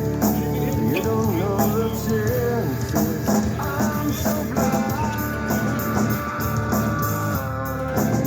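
Music playing: a song with held, sliding melodic notes over a full low backing.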